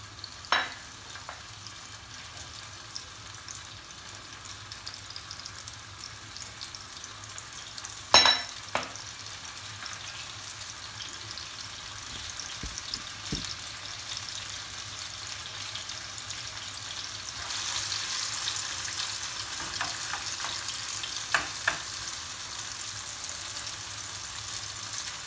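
Cooking oil heating in nonstick frying pans on a gas stove, giving a steady sizzling hiss that grows louder about two-thirds of the way through. A single sharp knock comes about a third of the way in, with a few smaller clicks.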